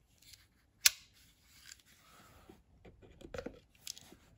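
A Swiss army pocket knife's blade snaps open with one sharp click about a second in, followed by scraping and cutting sounds as the blade works at the packing tape on a cardboard box.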